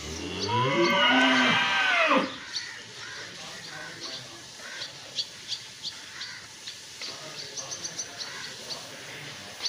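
One of the dairy cattle moos once, a long call over the first two seconds whose pitch rises and then falls. Birds chirp in short, repeated notes throughout, with a quick run of chirps near the end.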